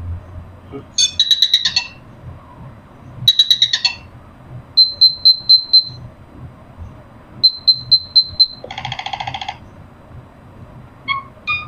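Nothing Phone (1) playing an electronic ringtone: groups of high, chirping synthetic beeps, some in quick runs of five or six, with a lower, buzzier chord about nine seconds in.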